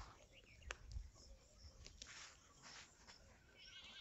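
Near silence, with a few faint clicks and a faint high chirring near the end.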